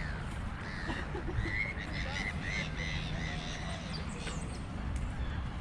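Birds calling, a run of short arching chirps coming fastest in the middle, over a steady low rumble.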